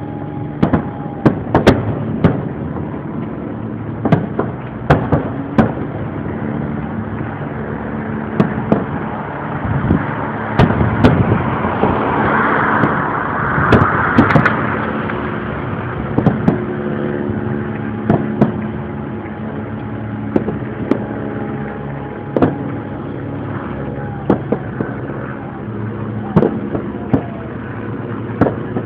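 Fireworks going off in a rapid, irregular series of sharp bangs, over a steady low mechanical hum. A hissing rush swells briefly about halfway through.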